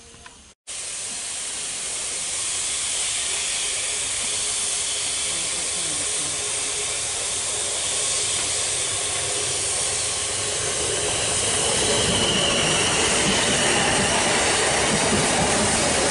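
Steam locomotive hissing steadily, steam blowing from its cylinder drain cocks. From about eleven seconds in, the noise grows louder as an electric multiple-unit train runs past close by on the rails.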